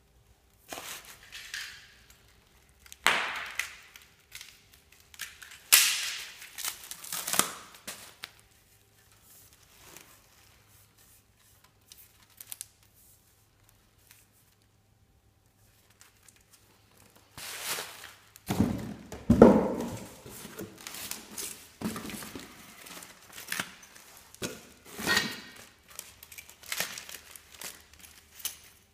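Bubble wrap and plastic packaging crinkling and rustling in irregular bursts as they are handled and pulled from cardboard boxes, with a few knocks. A quiet spell of several seconds comes midway.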